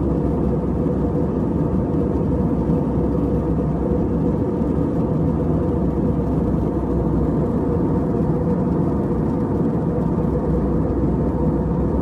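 A steady low rumble with a faint hum through it.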